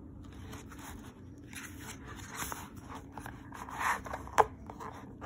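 Paper pages of a picture book being turned and pressed flat by hand, rustling and sliding, with a sharp tap about four seconds in.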